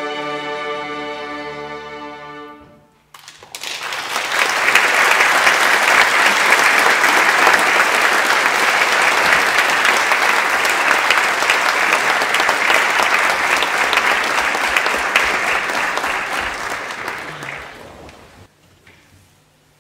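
A string chamber orchestra with harp holds its final chord, which fades and stops about three seconds in. The audience then breaks into applause, which goes on steadily and dies away near the end.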